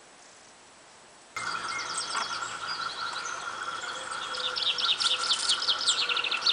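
Small songbirds singing: many quick, high, falling notes and trills, starting suddenly about a second and a half in after faint hiss, over a steady faint tone.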